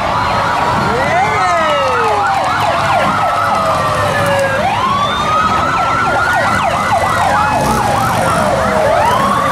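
Several police motorcycle sirens sounding at once, overlapping quick yelps with slower rising and falling wails.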